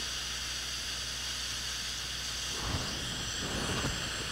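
One long, steady exhale blown through the plastic mouthpiece of a CMI Intoxilyzer S-D2 handheld breath-alcohol tester, heard as a hiss. It is a breath sample being given for an alcohol reading.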